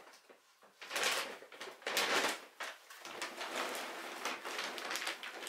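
A large bag of dry dog food being picked up and handled: crinkling rustles in short bursts about one and two seconds in, then steady rustling of the bag.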